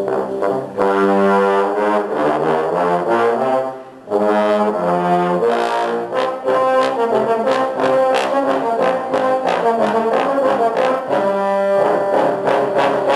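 Trombone ensemble playing together: held chords in several parts, with a short break about four seconds in before the playing resumes.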